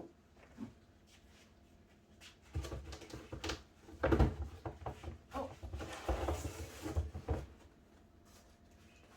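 Irregular knocks, thuds and clatter of things being handled and moved, like a cupboard or drawer being opened and closed, for about five seconds in the middle.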